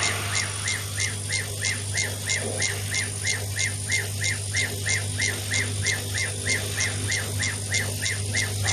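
CO2 laser marking machine running while it marks a glass bottle: a steady low hum with a regular high chirp about three times a second.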